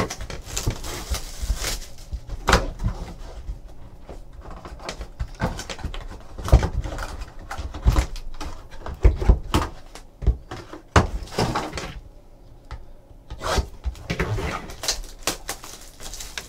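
A Panini Select football hobby box being handled and opened by hand: irregular cardboard taps and knocks, with scraping slides of cardboard as its packs are worked out of the box.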